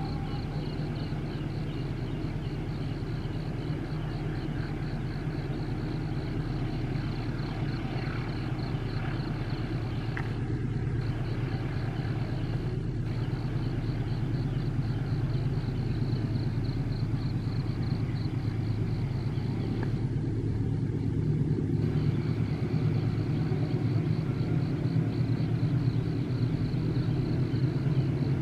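Diesel-electric locomotive hauling a long passenger train up a steep grade, its engine working hard with a steady deep drone that grows louder as the train comes closer.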